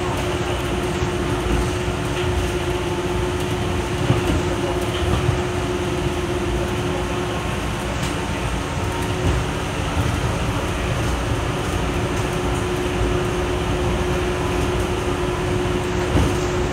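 Rubber-tyred automated metro train running along an elevated guideway, heard from inside the car: a steady rolling rumble with a constant hum, and a few light knocks.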